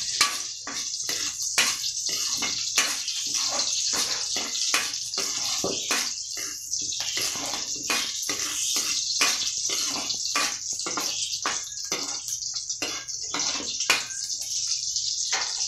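Onion and garlic sizzling in hot oil in a wok, with a metal spatula scraping and knocking against the wok in repeated strokes as they are stir-fried.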